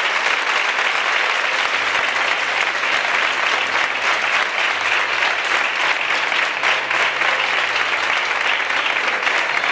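Audience applauding, a dense, steady clapping at an even level.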